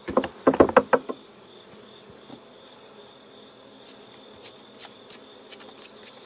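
A rapid burst of sharp wooden knocks for about a second as a beehive frame is jolted inside the wooden hive box, then a steady high insect drone with bees buzzing and a few faint ticks.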